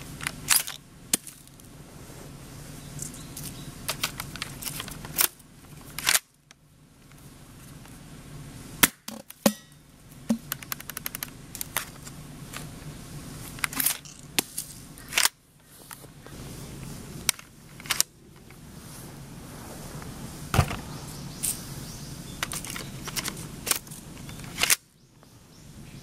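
Airsoft M203-type grenade launcher firing gas-charged shells: a series of sharp pops spread out over the stretch, with smaller clicks and knocks between them.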